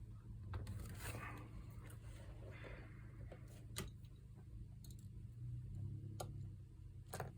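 Scattered faint clicks and taps as laptop parts are handled during a keyboard replacement, over a low steady hum.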